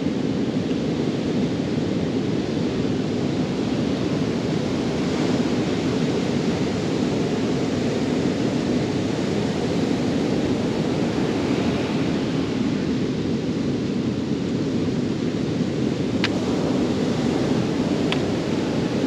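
Steady wind and surf at the shore, the wind rumbling on the microphone, with no change in level throughout.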